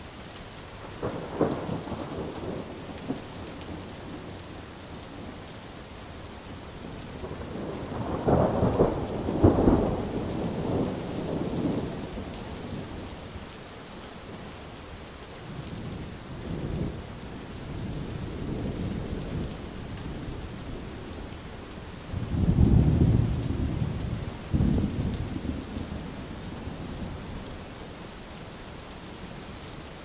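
Thunderstorm: steady rain with several rolls of thunder. A short rumble comes about a second in, then a louder, longer roll around eight to twelve seconds in, and softer rumbles in the middle. A sudden loud clap breaks about twenty-two seconds in and rolls on for a few seconds.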